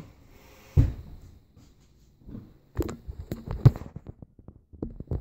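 Handling noise from the camera being picked up off a wooden table: a dull thump about a second in, then a string of knocks and clicks from about three seconds on.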